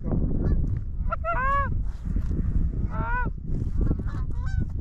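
Goose honking: several short clusters of honks, about a second in, around three seconds and near the end, over a steady low rumble.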